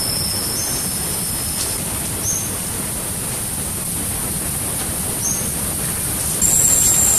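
Steady outdoor background hiss with a thin, high-pitched insect drone. About six seconds in, the sound steps up in loudness and a higher drone takes over.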